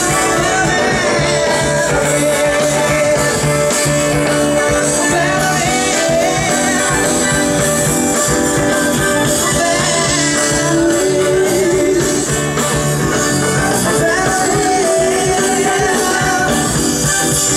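Live band playing a pop-rock song with drums and guitar, and a singer's voice over it.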